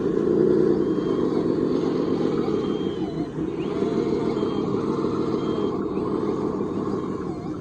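Radio-controlled scale construction machine running, a steady mechanical drone of its motors and gearing that eases off slightly near the end.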